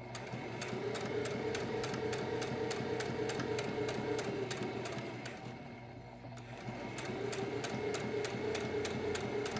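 Electric sewing machine stitching a seam through pinned cotton fabric, running slowly with a steady hum and an even, rhythmic needle clatter. It eases off briefly about six seconds in, then picks up again.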